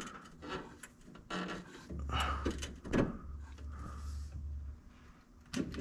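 Scattered clunks and knocks of an engine mount being shifted and adjusted into position. A low steady hum runs for about three seconds in the middle.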